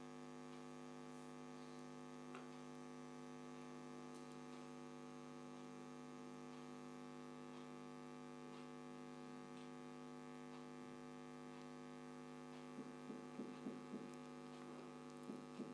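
Near silence with a faint, steady electrical hum. A few soft scrapes of a steel spoon against the pot come near the end.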